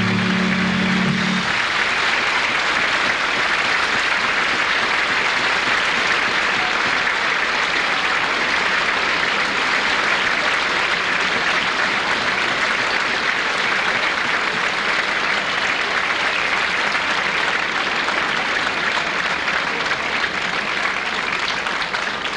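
A large audience applauding steadily and at length. At the start the band's held final note is still sounding and fades out about a second and a half in.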